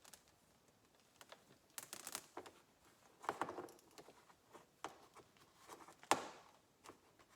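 Scattered light clicks, taps and rustles of a multimeter and its test leads being handled while setting up a capacitor test, with one sharper click about six seconds in.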